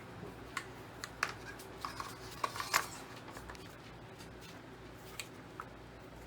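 Scattered light clicks and knocks of metal and plastic parts as a semi-automatic shotgun's barrel is fitted onto the receiver, busiest in the first three seconds and sparser after.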